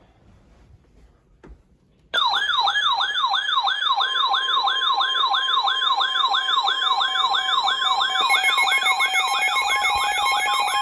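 Electronic alert tone for an emergency alert: a fast, rising, siren-like warble, about three or four sweeps a second. It starts abruptly about two seconds in after a near-silent gap, and a steady tone joins it near the end.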